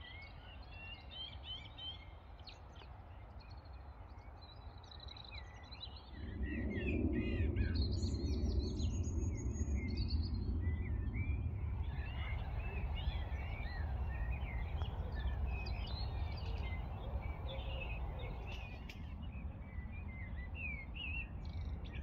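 Many small birds chirping and singing together. About six seconds in, a low rumbling noise comes in and stays underneath the birdsong.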